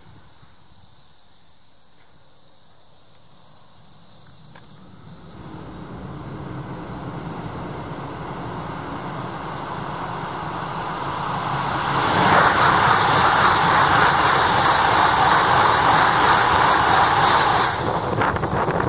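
Tohoku Shinkansen train approaching through the tunnel, its rumble building steadily, then rushing past at high speed with a loud roar that begins suddenly and cuts off sharply as the tail clears, near the end.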